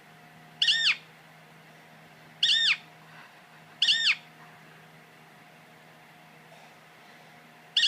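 Kitten meowing: three short, high-pitched mews a second or two apart, each rising and falling in pitch, with another starting right at the end.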